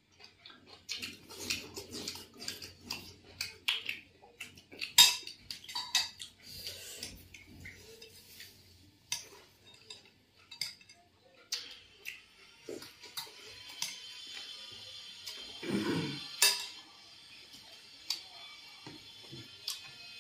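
Two people eating by hand at a table, with chewing and lip-smacking and many small clinks and taps on china plates and bowls. From about twelve seconds in, a steady high-pitched tone runs underneath.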